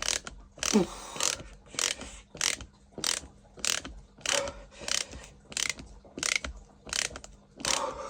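Small ratchet screwdriver being cranked back and forth to drive a 2.5-inch screw, its pawl clicking in an even rhythm of roughly one and a half strokes a second; a hard-going drive with the screw deep in. A short falling squeak about a second in.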